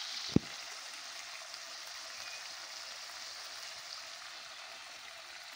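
Buffalo meat curry sizzling in oil in a karahi, a steady hiss, with one sharp clank of the metal stirring spoon against the pan near the start.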